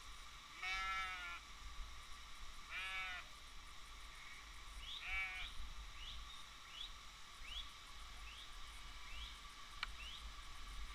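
Bleating from a passing flock of sheep and goats: three separate calls in the first five seconds, over a steady rush of water. From about five seconds in, a run of short high chirps repeats roughly every 0.7 seconds.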